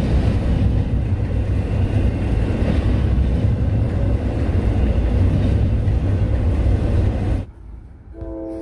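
Freight train crossing the bridge overhead: a loud, steady, heavy rumble that cuts off abruptly about seven and a half seconds in. Music with held chord tones starts just before the end.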